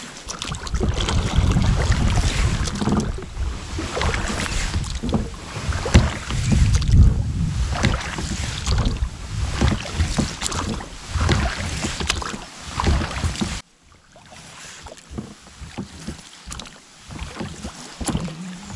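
Wind buffeting the microphone over a small boat on the water, with scattered knocks and splashes from the boat and gear. The rumble drops off abruptly about two-thirds of the way through and goes on quieter.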